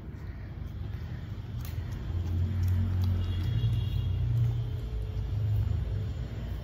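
Low rumble of a motor vehicle engine running, growing louder about two seconds in.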